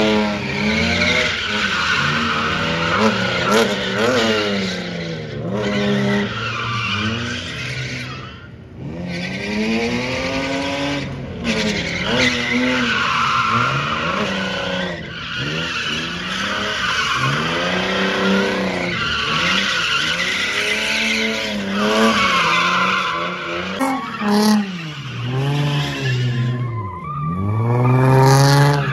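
A car engine revving hard, its pitch rising and falling every second or two, while the tyres squeal and skid as the car slides.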